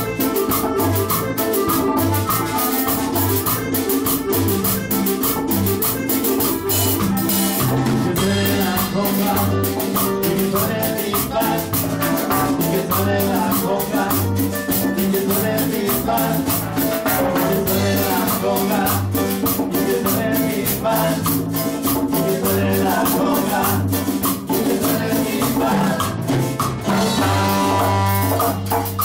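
Live cumbia band playing a steady groove: electric guitar, drum kit and congas over a repeating bass line, with a shaker-like rattle on top. Brass comes in near the end.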